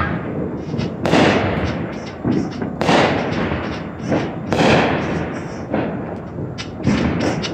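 Aerial fireworks going off: a loud bang every second or two, with smaller pops and crackles in between.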